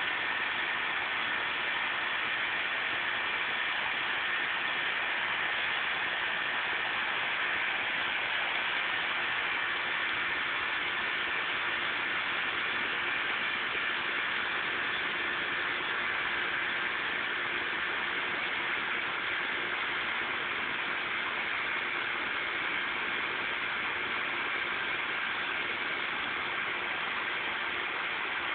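Steady outdoor background hiss with a faint constant hum underneath, unchanging throughout, with no distinct sounds standing out.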